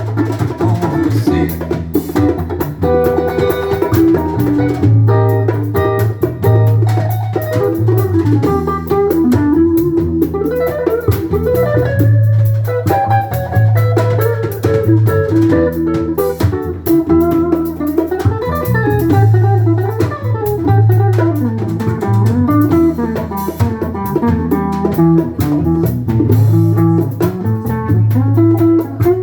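Instrumental band music: an electric guitar plays a melodic solo over bass and a drum kit in a steady groove.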